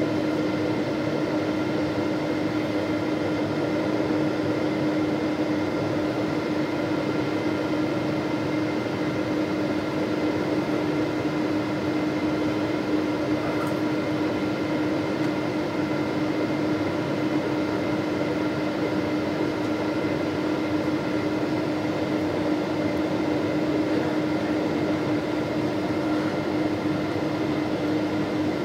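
Jet airliner cabin noise during descent: engines and airflow make a steady, even rush inside the cabin, with a constant low hum and faint higher whining tones over it.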